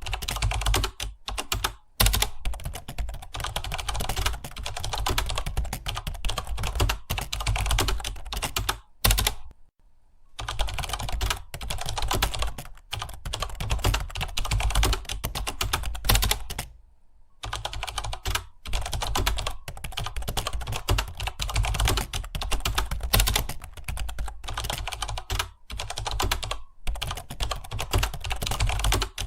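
Computer keyboard typed on rapidly, a fast, steady patter of key clicks with two short pauses, about a third of the way in and just past halfway.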